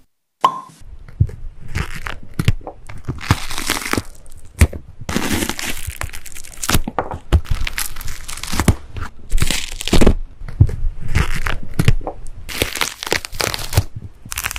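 Pomegranate having its arils pried out of the white pith with a knife tip, close-miked. An irregular run of crackles, with sharp cracks now and then, as peel, membrane and seeds give way.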